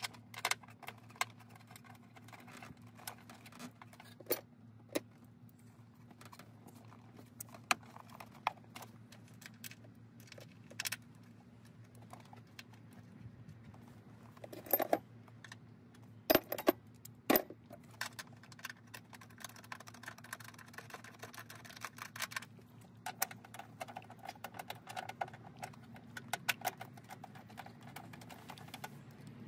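Scattered sharp plastic clicks and knocks from the Lexus RX330's engine-bay fuse box housing being handled and clipped into place by hand, with a few louder knocks about halfway through.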